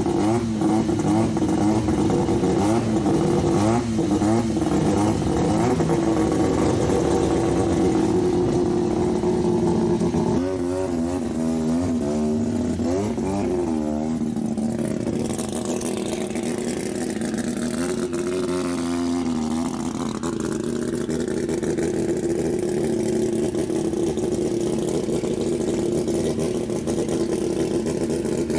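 Second-generation Mazda RX-7 race car's turbocharged, street-ported rotary engine idling, the revs wavering up and down in short throttle blips several times.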